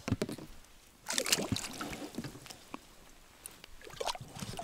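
Handling noises in a small boat: scattered knocks and clicks, with a louder rustling, swishing burst about a second in.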